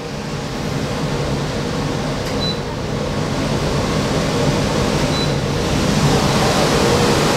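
Laguna Aflux 12 air filtration unit's fan running up to a higher speed: a steady rush of air with a low hum, getting steadily louder as it speeds up.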